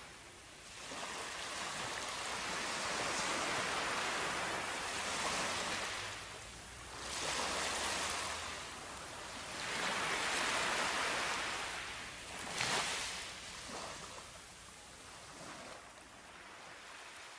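Surf washing up on a sandy beach: waves rush in and draw back in a hiss that swells and ebbs every few seconds.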